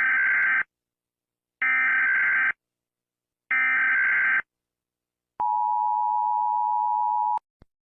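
Emergency Alert System tones: three SAME header data bursts, each a harsh buzz about a second long, then the two-tone attention signal held steady for about two seconds.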